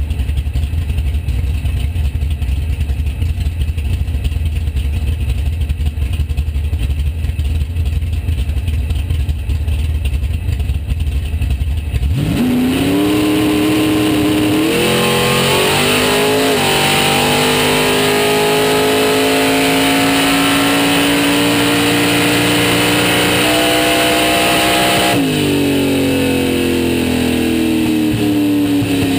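Drag race car's engine heard from inside the cabin: it idles with a low rumble, then about twelve seconds in it launches and accelerates, its pitch climbing with a couple of jumps and then a slow rise through the run. About twenty-five seconds in the throttle is lifted and the engine note falls away as the car slows.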